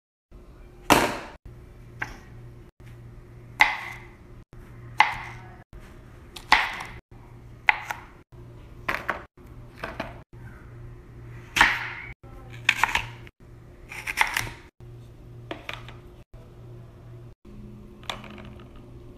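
Food pieces and a utensil knocking against a hard plastic serving platter as it is filled: a series of sharp clacks, roughly one a second, over a low steady hum.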